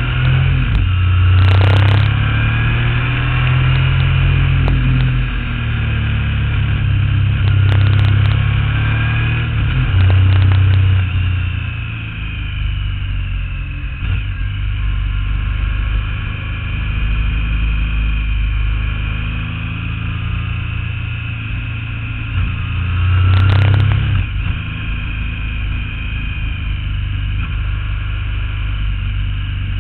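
Motorcycle engine heard from an on-board camera while riding a winding road, running steadily and rising in pitch as it accelerates out of bends near the start, around a third of the way in, and again near the end, with a few short clicks.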